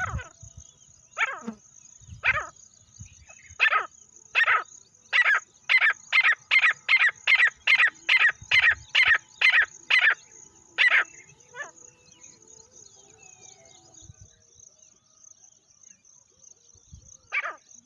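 Francolin (teetar) calling: a series of loud, harsh notes that start about a second apart, quicken to about three a second, then stop about eleven seconds in. A steady high whine runs underneath.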